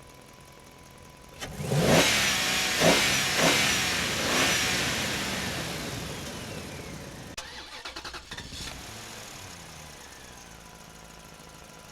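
Heavy machine's engine revving up in several rising bursts, then slowly winding back down, with a brief rapid rattle near the end before settling to a steady run.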